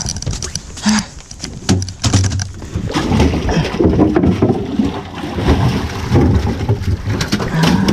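Water moving and sloshing around a small fishing boat, with a few sharp clicks and knocks in the first two seconds.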